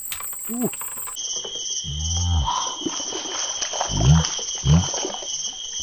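Steady high shrill of crickets or other insects, its pitch dropping to a lower steady tone about a second in. A few short low arched calls or exclamations break in, the loudest about two seconds in and two more around four seconds.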